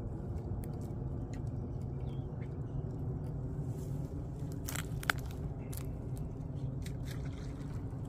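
Rod and reel being worked while playing a hooked, heavy catch: a steady low rumble with scattered light clicks, and a brighter cluster of clicks about five seconds in.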